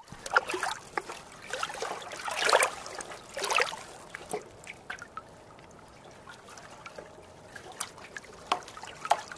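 Logo-intro sound effect of liquid splashing and trickling, in irregular splashes that are loudest in the first few seconds, then fading to scattered drips and clicks near the end.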